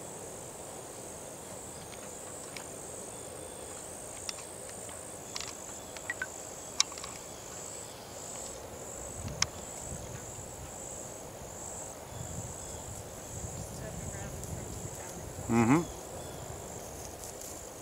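Insects buzzing steadily at a high pitch, settling into a pulse of about two beats a second from around five seconds in, with a few faint clicks and one brief rising voice near the end.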